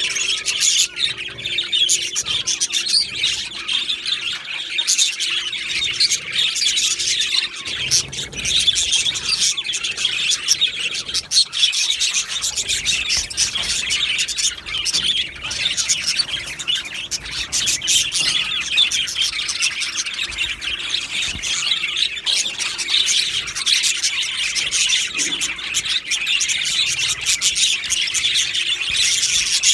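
A colony of budgerigars chirping and chattering together, a dense, continuous jumble of many short high chirps with an occasional squawk.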